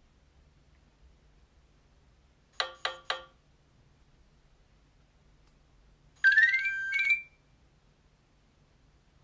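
Short alert tones played by a Nokia 6230i mobile phone: three quick beeps about two and a half seconds in, then a brighter tone of about a second with a quick rising sweep about three seconds later.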